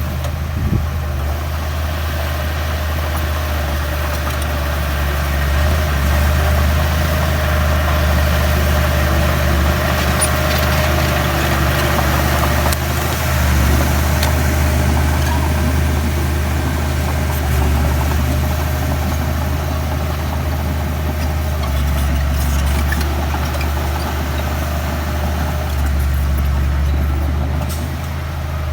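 Komatsu D31P bulldozer's diesel engine running continuously, swelling and easing every few seconds as the load on it changes.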